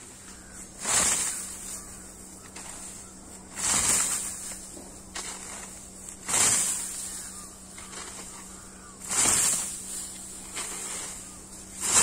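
Scythe blade swishing through standing rice stalks in regular mowing strokes, about one every two and a half to three seconds: four strokes, with a fifth starting right at the end.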